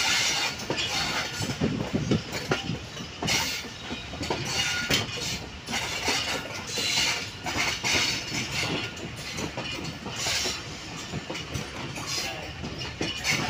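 Passenger coach of the Millat Express running along the track, heard from inside the moving coach: a steady rumble of wheels on the rails broken by irregular clicks and knocks.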